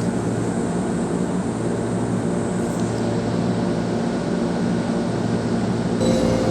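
Steady mechanical drone of an electric train with a low hum. Near the end the sound shifts abruptly and new steady tones come in.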